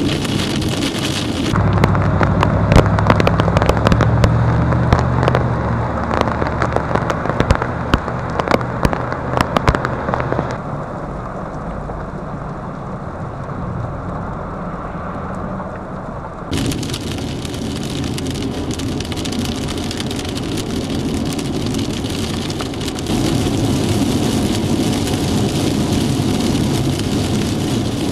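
Heavy thunderstorm rain, with vehicles driving through it. For the first ten seconds or so a dense run of sharp taps sounds over the rain. The sound then drops quieter and later returns to a steady rush, changing abruptly between shots.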